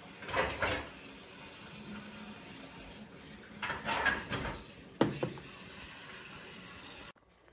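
Small spice jar of paprika shaken over a tub of hummus in two short bursts of shaking, then a sharp knock about five seconds in.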